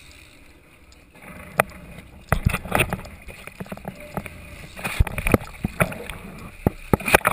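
Noise aboard a sport-fishing boat at sea: a steady low rumble with irregular knocks and thumps, coming thicker from about two seconds in.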